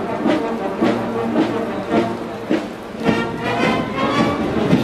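Military marching band playing a march, with a drum stroke on each beat, a little under twice a second. Held brass notes come in strongly about three seconds in.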